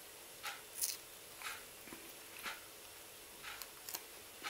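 Salted dried fish being pulled apart by hand and eaten, giving a few faint dry crackles. A soft tick recurs about once a second behind it.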